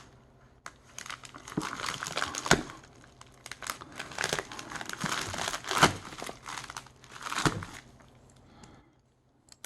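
Shipping packaging being handled and torn open: irregular crinkling and crackling with a few sharper rips, fading out near the end.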